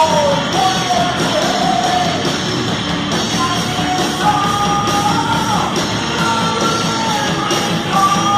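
Heavy metal band playing: dense distorted guitars and drums under a high, wavering melody line that bends up and down.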